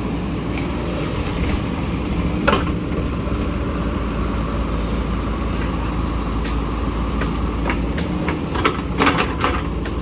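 Heavy diesel machine engine running steadily, with a few sharp knocks: one about two and a half seconds in and a quick cluster near the end.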